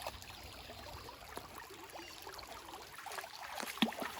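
Faint trickling of shallow water, with a few light knocks or splashes near the end.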